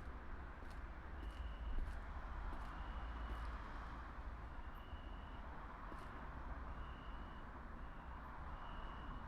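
Steady low rumble under a noise haze, with short high chirps repeating about once a second.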